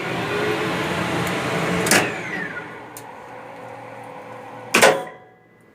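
Electric lift machinery running: a motor sound that builds over the first two seconds, then a click followed by a falling whine. It settles to steadier, quieter running and ends with a sharp clack of the contactor near the end, after which it stops.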